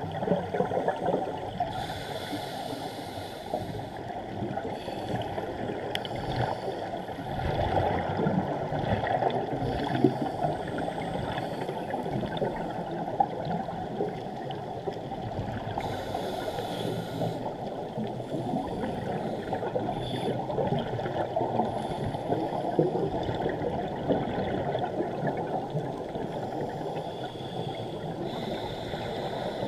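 Muffled underwater bubbling and rushing heard through a GoPro's waterproof housing, with louder bursts of scuba regulator exhaust bubbles several times.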